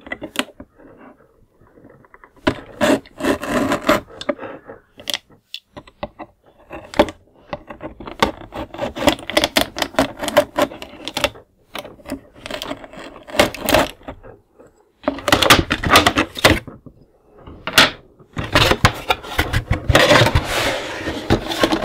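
Pen-style hobby knife cutting and scraping at packing tape inside a cardboard box, with irregular clicks, scrapes and crinkles. Near the end the cardboard box is tipped and handled, a longer stretch of cardboard rubbing and scraping.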